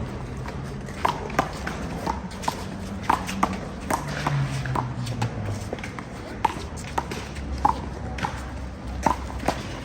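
One-wall handball rally: a small rubber handball slapped by open hands and smacking off the wall and court, a quick irregular series of sharp impacts, about one or two each second.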